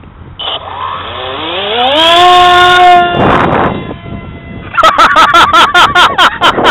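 Skyfun RC plane's 2800 Microdan electric motor and Graupner 5.5x4.3 speed prop spooling up to full throttle: a whine that rises in pitch for about a second and a half, then holds steady. About three seconds in there is a short rush of air. From about five seconds in the whine warbles, under rapid pulsing wind buffeting on the onboard microphone, about six pulses a second, as the plane climbs.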